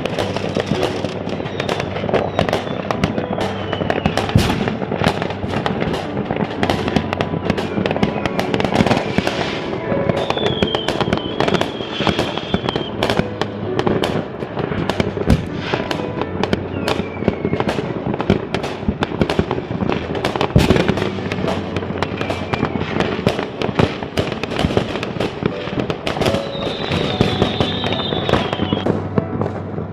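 New Year fireworks going off nonstop, a dense rapid crackle of bangs with high whistling fireworks a couple of times.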